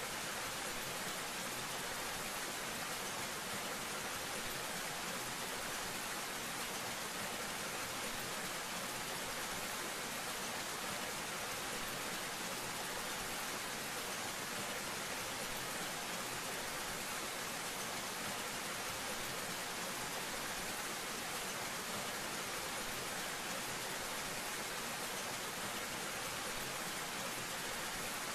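Small waterfall: thin streams of water falling down a rock face and splashing below, a steady, even hiss that does not change.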